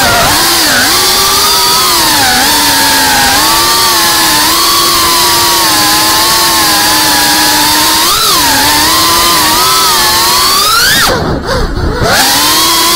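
Whine of a GEPRC CineLog35 ducted FPV cinewhoop's brushless motors and propellers, heard through the onboard camera, rising and falling in pitch with the throttle. Near the end the pitch climbs sharply, then drops with a brief dip in level as the throttle is cut, before the whine picks up again.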